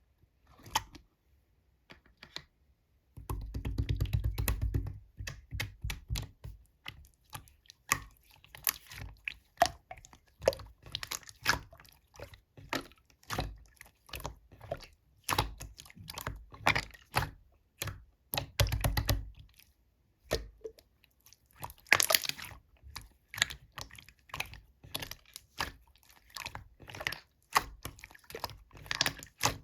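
Slime being squished, pressed and stretched by hand, giving a dense run of sticky clicks and pops, with heavier, deeper squelches a few seconds in and again about two-thirds of the way through.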